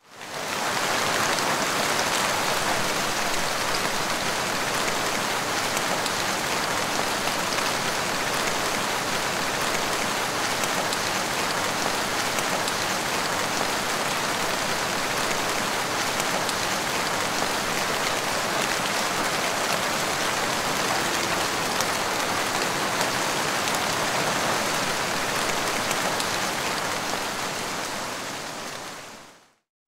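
Heavy rain pouring onto a flooded street, a dense, even hiss that holds steady and then fades out near the end.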